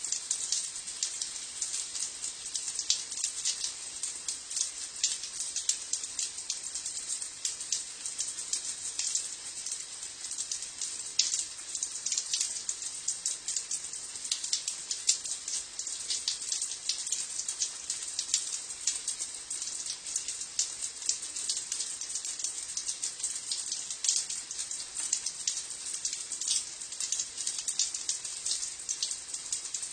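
Shower water falling on a stone floor, a steady hiss dense with small splattering droplets.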